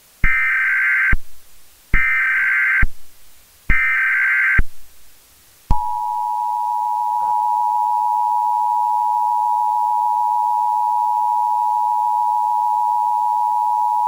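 Emergency Alert System header: three short bursts of SAME digital data tones, each about a second long, then about six seconds in, the steady two-tone EAS attention signal held for about eight seconds, announcing the start of a new alert message.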